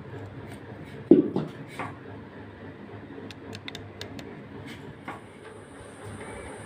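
A sharp knock about a second in, followed by a second, softer knock. Scattered light clicks follow, like small parts being handled, over a steady low hum.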